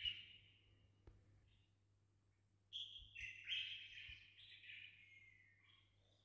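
A songbird singing faintly: a short burst of chirps at the start, then a longer phrase of stepped, warbling notes from about three seconds in that fades out near the end. A steady low hum runs underneath.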